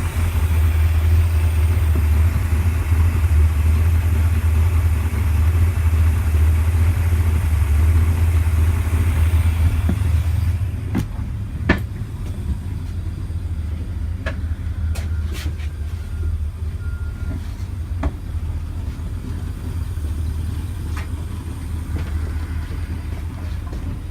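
An engine running with a steady low drone. About ten seconds in, a louder rushing noise over it drops away, leaving the drone with a few sharp clicks.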